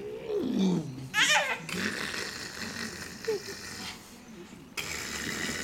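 Baby vocalising: a falling coo, then a short, high-pitched squeal about a second in, followed by a breathy, rustling hiss.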